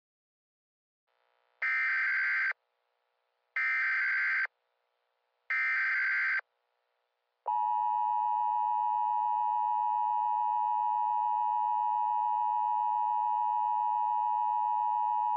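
Emergency Alert System tones: three bursts of SAME digital header data, each about a second long and about a second apart, then the steady two-tone EAS attention signal held for about eight seconds before it cuts off sharply.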